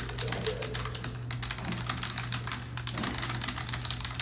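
Fast, continuous typing on a computer keyboard: many quick, irregular key clicks over a steady low hum.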